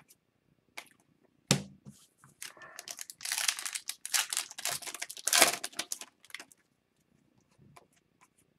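A 2021-22 Upper Deck Series 2 hockey card pack being torn open, its wrapper crinkling and tearing in a run of crackles for about four seconds, after one sharp tap.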